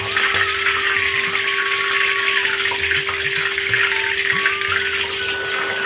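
Slit green chillies sizzling steadily in hot oil in a kadai, held in a wire frying basket over a low gas flame.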